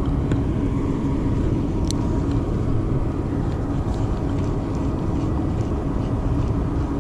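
Steady engine hum over a low rumble, with a single light click about two seconds in.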